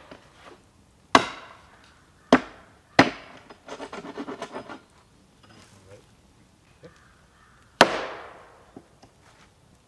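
Four hard blows of a tool striking wood, each with a short ringing tail. The first three come about a second apart and the last after a pause of several seconds. A quick rattling scrape follows just after the third blow.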